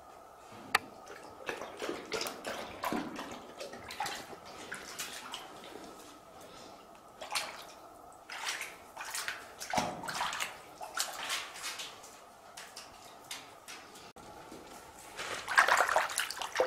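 A dog lapping water, in runs of quick wet laps broken by pauses.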